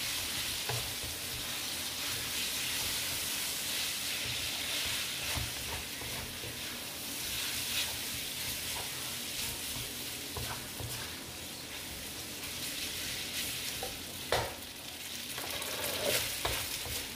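Spaghetti sizzling in hot oil in a nonstick wok as a wooden spatula stirs and tosses it: a steady frying hiss with soft scrapes from the spatula. A single sharp knock a few seconds before the end.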